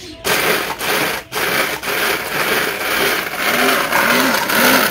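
Small electric dry grinder running loud, its blade grinding broken biscuits into crumbs. The motor starts about a quarter second in, cuts out briefly just after a second, then runs on steadily.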